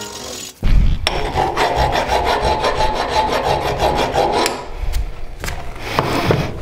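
Steel hand file rasping over the steel of a shotgun part clamped in a vise, in quick repeated strokes that start about half a second in, filing away the stamped serial number.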